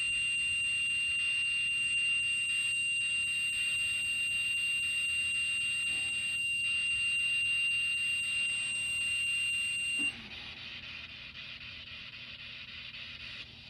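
REM pod ghost-hunting sensor sounding its alarm: one steady high-pitched tone that cuts off suddenly about ten seconds in. The alarm means something has disturbed the field around its antenna, which the investigator takes for a spirit touching it.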